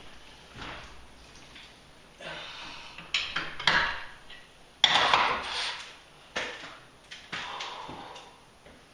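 Metal clanking and scraping from hand work on a garage door's lift cable hardware, a series of irregular knocks and scrapes, the loudest about five seconds in.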